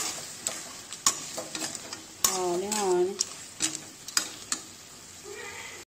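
Perforated metal spatula stirring thick snail curry in a metal kadai, scraping and clicking against the pan over a simmering sizzle. A brief wavering tone comes just before midway.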